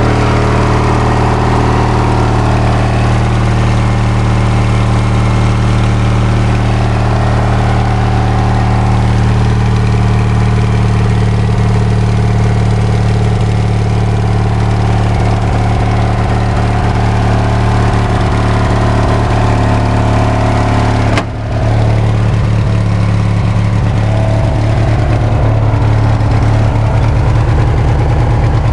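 John Deere ride-on lawnmower engine running steadily at idle, heard up close. The sound dips briefly once about two-thirds of the way through.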